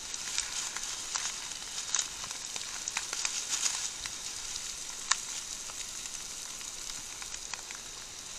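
Heavy rain pouring down: a steady hiss with scattered small ticks of drops.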